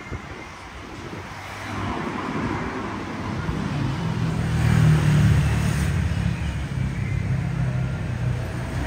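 Street traffic with a vehicle engine running close by. It swells from about two seconds in, is loudest around the middle, then settles to a steady rumble.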